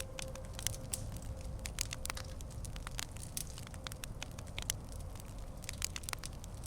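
Fireplace crackling, with irregular sharp pops over a steady low rumble. A held musical note fades away over the first two seconds or so.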